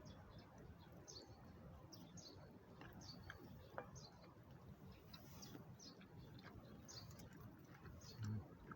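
A small bird chirping faintly and repeatedly, short high chirps about one or two a second, over a low steady outdoor rumble.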